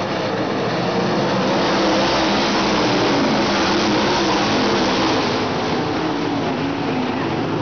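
A field of dirt-track race cars running hard around the oval. Several engines are heard at once, their pitches rising and falling, and the sound swells as the pack passes in the middle of the clip.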